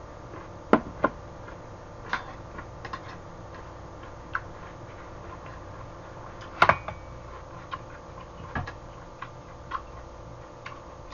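Metal chopsticks clicking and tapping against a plastic food container and a stainless steel pot while eating: scattered sharp clicks at irregular intervals, the loudest about two-thirds of the way through.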